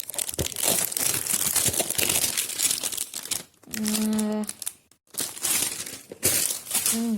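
Packaging of a boxed toy crinkling and tearing as it is unwrapped by hand, a dense crackle with a couple of short pauses. A short hummed voice sound about four seconds in.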